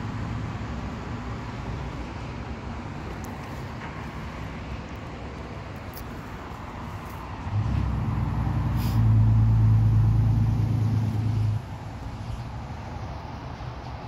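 A low, steady motor hum over outdoor background noise. The hum grows louder a little past halfway and stops abruptly about four seconds later.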